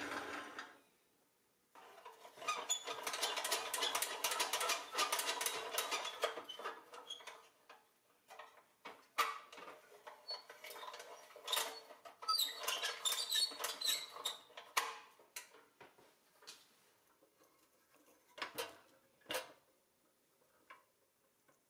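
Rusty pressed-steel Tonka Mobile Clam toy crane worked by hand: its corroded winch and moving parts give two long runs of dense metal clicking and scraping, with scattered single clicks and knocks between and after.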